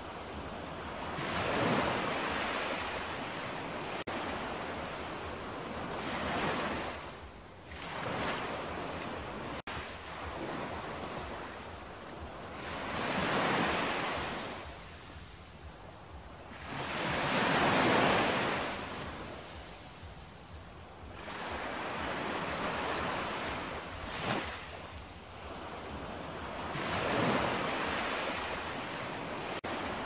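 Ocean surf: waves breaking and washing in, each surge swelling and fading every four or five seconds.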